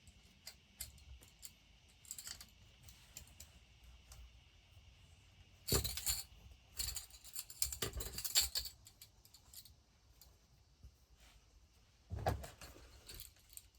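Small craft decorations being handled and tucked into place: scattered light clicks and rustles, busiest from about six to eight and a half seconds in, with another short rustle near the end.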